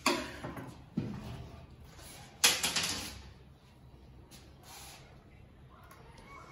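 Metal telescopic drawer slide being set in place against an MDF drawer side: three sharp knocks about a second apart, the last the loudest with a short rattle after it.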